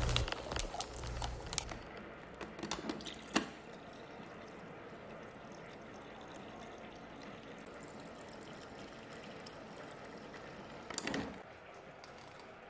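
Refrigerator door water dispenser running water into a glass of ice and orange squash, a steady pour of about seven seconds that stops about eleven seconds in. Before it, a few sharp clinks and knocks of glass and ice.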